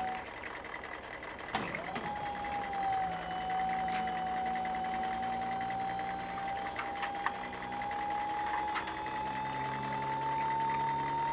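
Small electric toy motor whining steadily, its pitch creeping slowly higher. It cuts out just after the start and spins back up about two seconds in. Light plastic clicks and taps from the toy being handled.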